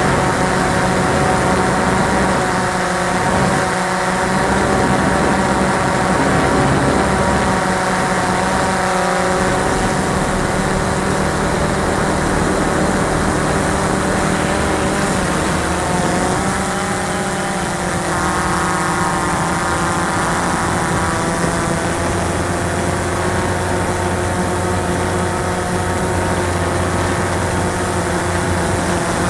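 Cheerson CX-20 quadcopter's electric motors and propellers in flight, heard from the drone's own camera: a steady multi-toned whine whose pitches shift up and down as the motors change speed, most noticeably after about 16 seconds.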